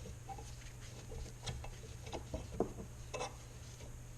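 Valve spring compressor being unwound by hand off a valve spring, with a few scattered metal clicks and rubbing from the tool's screw and jaws on the cylinder head.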